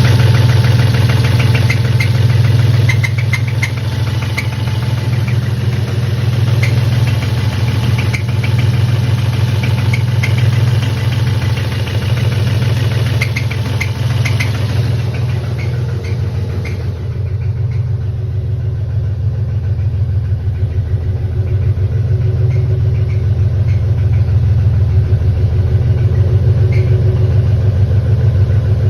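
BMW M52B28 2.8-litre straight-six running steadily with a knock, which the owner suspects is a spun bearing. Small sharp ticks repeat over the steady engine note, and the brighter top end of the sound drops away about halfway through.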